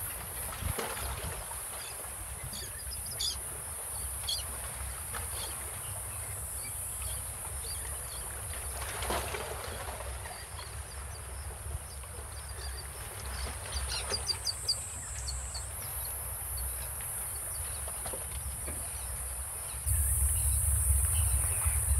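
Strong gusty wind rumbling and buffeting against the microphone, with a steady high hiss and a few short bird chirps. The wind grows louder about two seconds before the end.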